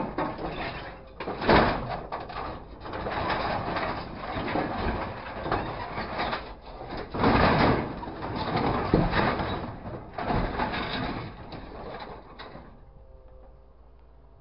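A grapple truck's claw working scrap metal in a steel container: continuous rattling and clanking of metal with heavy crashes about a second and a half, seven and a half and nine seconds in. The noise stops abruptly near the end.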